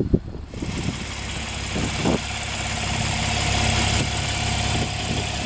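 Porsche 911 Black Edition's flat-six engine idling steadily, growing slightly louder, with a few light knocks at the very start.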